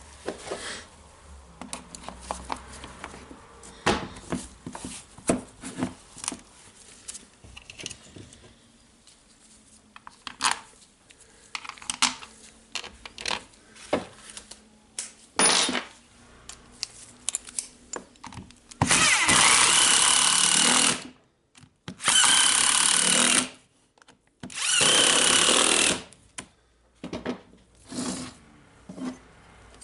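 Small clicks and knocks of parts being handled and fitted together during reassembly of an angle grinder. Later come three short runs, one to two seconds each, of an electric screwdriver's motor with a high whine, driving the housing screws home.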